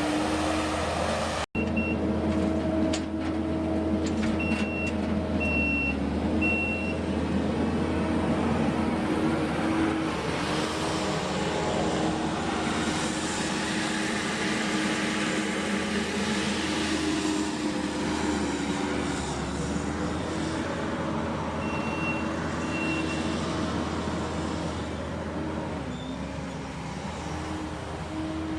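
Engine of heavy sawmill equipment running steadily, its pitch dipping now and then, with a reversing alarm beeping about once a second in two short spells.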